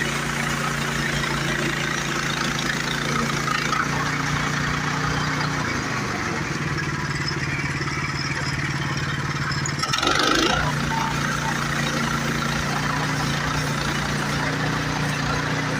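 Gas engine of a portable band sawmill running steadily, its pitch sagging briefly about four seconds in, with a short burst of harsher noise about ten seconds in.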